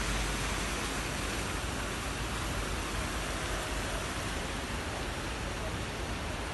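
Steady rushing noise of rain falling on wet paving and water running down a stepped cascade fountain.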